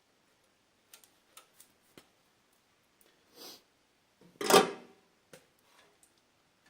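Small scattered clicks of a hand wire stripper working on a wire end, with a short louder burst about four and a half seconds in.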